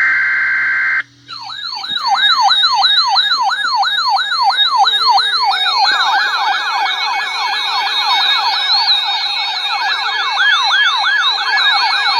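Emergency alert siren signal: a steady alert tone for about a second, then a siren of quickly repeating falling sweeps, about two and a half a second. Around six seconds in, a second overlapping sweep pattern joins it.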